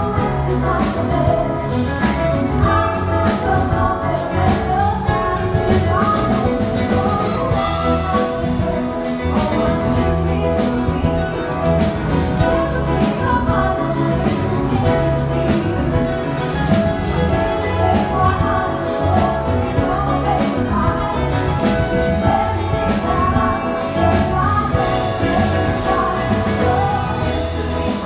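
Big band playing a pop song with a steady drum-kit beat and a singer over the band.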